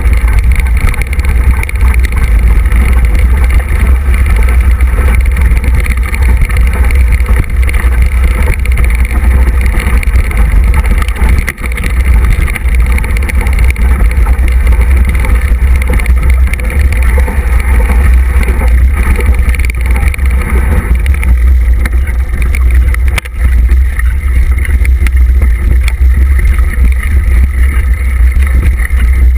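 Wind buffeting the microphone of a camera on a mountain bike descending a rough forest trail: a loud, steady low rumble mixed with the bike's rattle over stones and leaves. It dips briefly twice.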